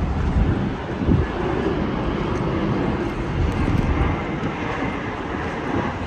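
An airplane passing overhead: a steady engine rumble that swells and eases slightly.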